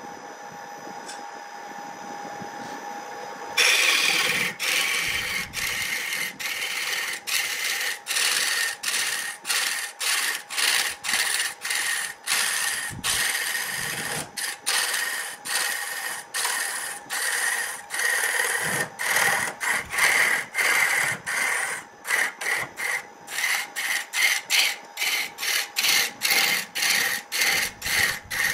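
A wood lathe hums steadily as it spins a wooden cylinder. About three and a half seconds in, a hand-held turning tool bites into the spinning wood, and a loud scraping, shaving noise runs on, broken by brief gaps about twice a second as the tool is worked back and forth along the blank.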